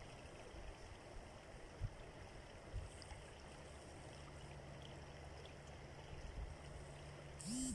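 Muddy flash-flood water rushing across a valley floor, heard faintly as a steady wash with a low rumble and a few soft low bumps. A short rising-and-falling sound comes in near the end.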